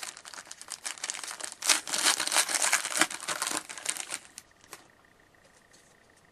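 Foil trading-card pack wrapper crinkling as it is torn open and crumpled, a dense crackle for about four and a half seconds that then stops.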